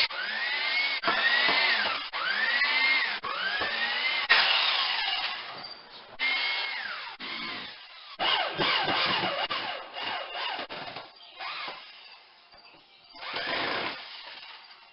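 Cordless drill/driver run in short trigger bursts on drywall screws. Its motor whine rises and falls with each burst, about six in the first seven seconds, then runs more irregularly. A short rasping burst comes near the end.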